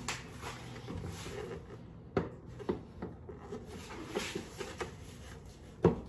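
Batwing fairing being handled and fitted against the motorcycle's front end: light rubbing and scattered hard knocks, with the loudest knock near the end.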